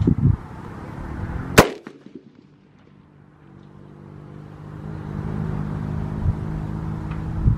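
A single loud rifle shot about a second and a half in, at a shooting range. After it a steady low drone builds up.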